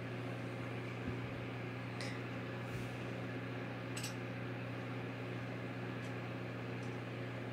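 A steady low hum with a few faint clicks, about two and four seconds in.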